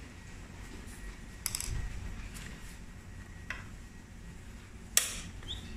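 Small metallic clicks and clinks of a screwdriver working a screw out of an electric scooter's metal deck: a few separate clicks, the loudest near the end.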